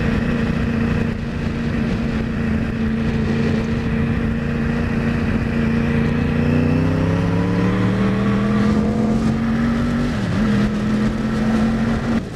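2009 Yamaha R1's crossplane inline-four engine running at steady revs, then rising in pitch as the bike accelerates, with a sharp dip in pitch at an upshift about ten seconds in. The revs climb again and fall away just before the end, under a steady rush of wind noise.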